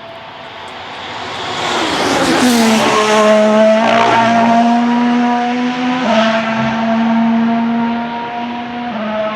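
Alpine A523 Formula 1 car with a turbocharged 1.6-litre V6, getting louder as it approaches and dropping in pitch as it passes about two and a half seconds in. It then pulls away at high revs, with two upshifts: one about six seconds in and another near the end.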